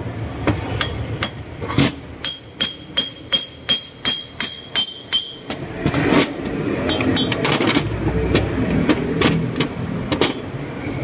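Repeated hammer taps on the metal housing of a Ford Everest 2.2 diesel's turbocharger, about three a second, with a ringing metallic tone, knocking the housing loose. Clinks and rattles of the metal parts follow in the second half.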